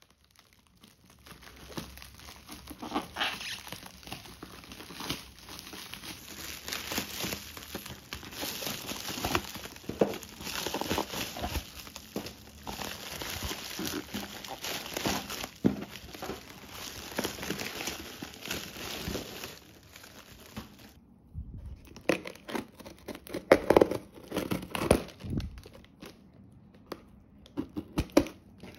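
Plastic courier bag and bubble wrap crinkling and rustling as a parcel is unwrapped by hand. After a brief break about two-thirds through come louder, separate snips and rips as scissors cut through the packing tape on a cardboard box.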